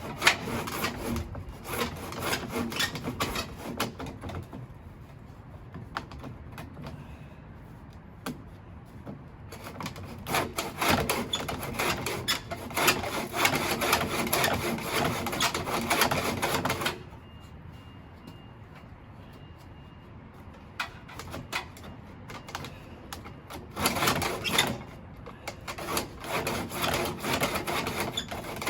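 Hand work with a tool: bouts of rapid scraping and rasping, each lasting a few seconds, with quieter pauses between.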